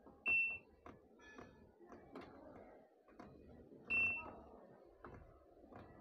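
Two short high beeps from the IFB front-load washing machine's control panel, about three and a half seconds apart, as a button is pressed and held to select the steam option. Faint clicks come between the beeps.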